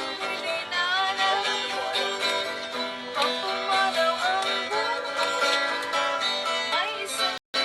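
Music led by plucked string instruments, with a melody moving over held notes; it cuts out for a moment just before the end.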